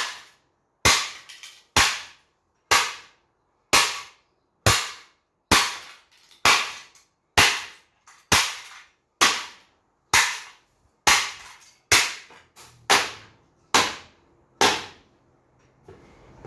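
Hoover desk fan being struck over and over to smash it: about sixteen sharp, loud cracking blows at roughly one a second, a few coming closer together near the end, before the blows stop.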